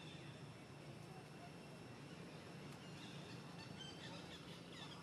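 Faint outdoor ambience: a steady low hum and thin, steady high tones, with a few short high chirps and a falling call in the second half.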